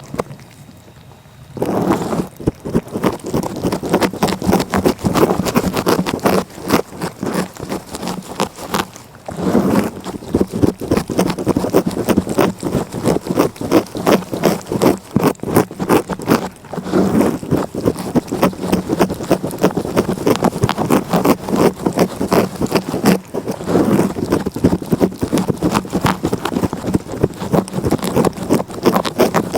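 A cat licking, its rough tongue rasping in quick, continuous scraping strokes. There is a short break in the first second or so and a few brief pauses after.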